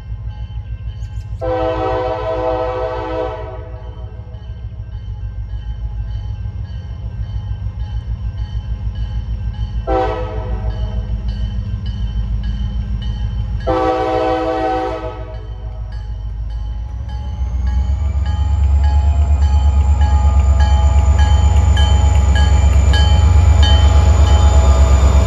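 CSX diesel freight locomotive sounding its horn in a long blast, a short one and another long one, several notes at once. Its engine rumble grows steadily louder from about two-thirds of the way through as it approaches and comes alongside.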